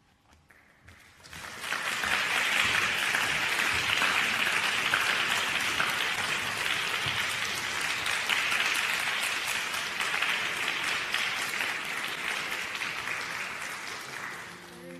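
Audience applauding, starting about a second in after a moment of quiet and dying away near the end.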